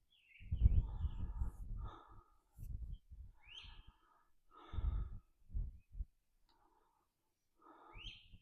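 Heavy, congested breathing close to the microphone: a run of loud breaths in and out, laboured from chest congestion and bronchitis. A bird gives short rising chirps, once about three and a half seconds in and again near the end.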